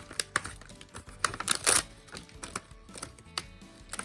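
Toy packaging being handled and opened: irregular crinkles and clicks, loudest about a second and a half in, over background music.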